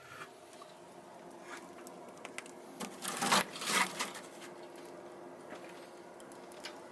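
Handling noises: scattered light clicks and taps, with a louder rustling scrape about three seconds in, over a faint steady hum.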